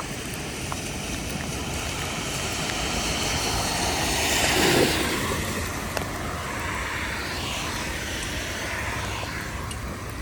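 A vehicle driving past on a wet road, its tyre hiss swelling to a peak about halfway through and then fading, over steady rain.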